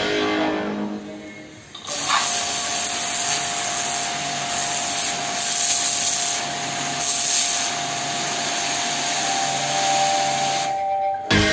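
Mechano 2200-watt, 160-bar electric pressure washer running, its jet hissing onto a concrete floor with a steady whine underneath. It starts suddenly about two seconds in and stops abruptly near the end.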